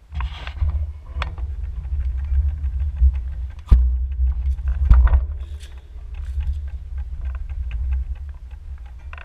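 Bicycle rolling along a driveway, heard through a handlebar-mounted action camera as a steady low rumble and rattle, with sharp knocks about a second in, near four seconds and at five seconds.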